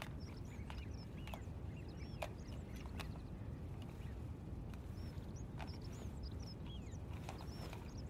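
Birds chirping: many short, quick chirps that rise and fall, with sharp clicking calls, over a steady low background rumble.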